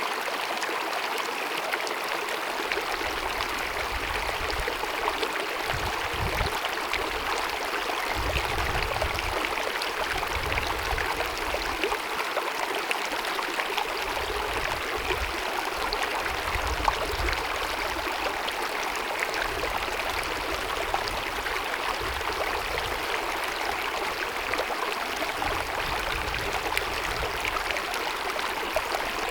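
Small glacier-fed mountain meadow stream babbling over rocks: a steady rush and gurgle of running water. Soft low rumbles come and go underneath.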